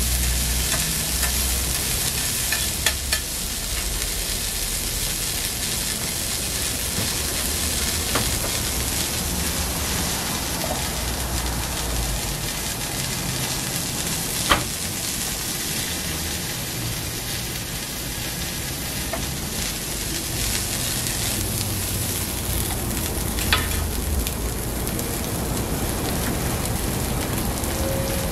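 Sausage slices, bean sprouts and eggs frying on a hot flat griddle: a steady sizzling hiss with a metal spatula stirring across the griddle at the start, and a few sharp clicks scattered through it.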